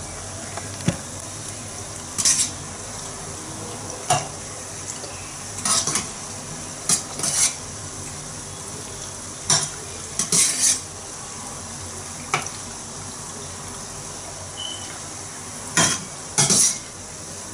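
Dough balls frying in hot oil in a small stainless-steel saucepan, a steady sizzle, while a metal slotted skimmer clinks and scrapes against the pan every second or two as the balls are turned.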